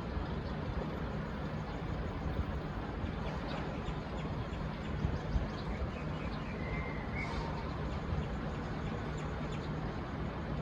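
V/Line VLocity diesel multiple unit standing at the platform with its engines idling: a steady low hum. A brief high chirp comes about seven seconds in.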